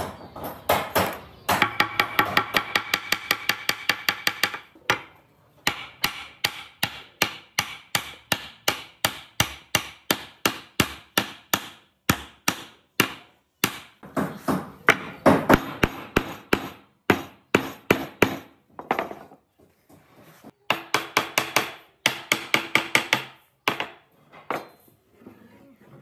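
Hammer blows on a wooden block, driving a curved pine table frame down onto dowels in its base board. Quick, even strikes, about three a second, come in several runs with short pauses between them.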